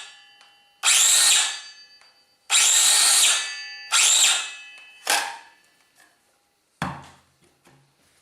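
Parkside PHKSA 20-LI A2 cordless circular saw switched on in brief trigger pulls, four times about a second and a half apart, the last one shortest. Each time the motor spins up with a rising whine and then winds down. Near the end comes a single knock followed by a few light clicks.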